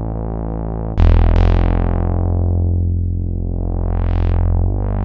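Warm saw-wave synth bass from a Serum preset, single saw oscillator layered with white noise, playing sustained notes. A louder new note comes in about a second in and another near the end. Its low-pass filter cutoff is swept down and back up by hand, so the tone goes dull and then bright again.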